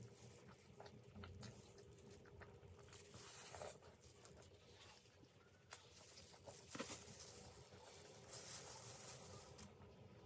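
Faint eating sounds from vegetable momos being eaten: scattered small wet clicks and soft rustles of chewing and mouth noise, with a few sharper ticks around the middle.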